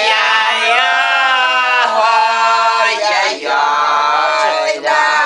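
Two elderly Siberian Old Believer women singing a Russian folk song together, unaccompanied, in strong voices with long held notes. The singing breaks briefly for breath about three seconds in and again near the end.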